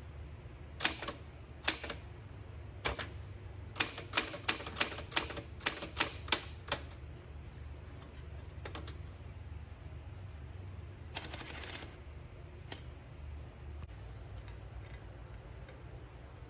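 Smith Corona Super Sterling manual typewriter being typed on: typebars striking the platen in a quick run of about ten keystrokes, then a few scattered strokes. About eleven seconds in there is a brief rasping sound, over a low steady hum.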